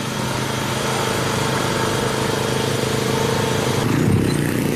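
An engine running steadily, with a brief shift in its low sound about four seconds in.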